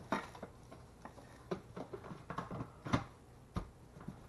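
Light clicks and knocks of hard plastic being handled, a few scattered over several seconds. The shop vac's motor stays silent: its battery is not installed.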